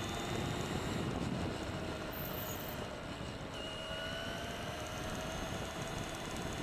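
Traxxas E-Maxx electric RC monster truck driving on asphalt, heard from its onboard camera: a steady rush of tyre and wind noise with a faint motor whine that drifts a little in pitch.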